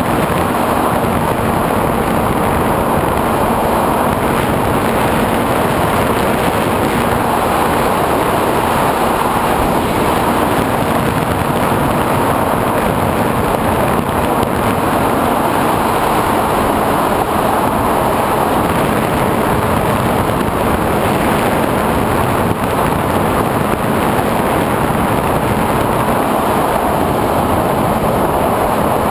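Steady rush of wind and the electric pusher motor and propeller of a SkyWalker 1900 FPV plane in flight, picked up by its onboard camera, with a faint steady hum under the noise.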